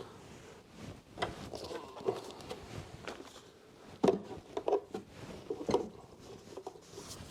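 Scattered light clicks and knocks, with some rustling, of tools and packaging being handled.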